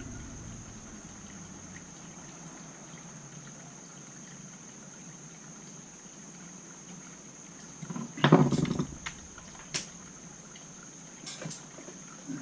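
Small metal carburetor parts and hand tools being handled on a workbench: a burst of clicking and rattling a little past the middle, then a few single sharp clicks, over a faint steady high-pitched whine.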